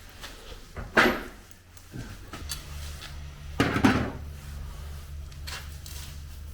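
Metal parts and tools clanking and knocking, with two sharp clattering hits, one about a second in and one near four seconds. A steady low hum sets in about two and a half seconds in.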